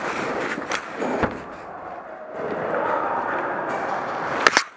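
Rough scuffing and rustling of a player on the move, with a couple of knocks about a second in. Near the end there is a loud, sharp double crack of airsoft guns firing.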